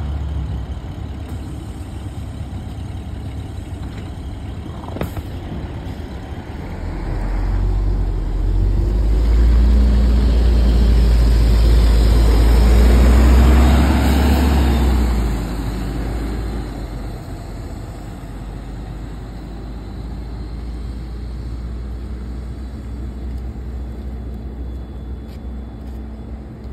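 LiAZ-5292 city bus moving off from a stop: its engine rumbles and revs up as it accelerates, loudest about halfway through with a rising pitch, then fades as the bus drives away.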